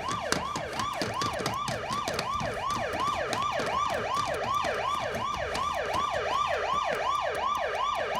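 Siren-like yelp wailing rapidly up and down in pitch, about three sweeps a second, steady throughout, as one of the episode's odd noises.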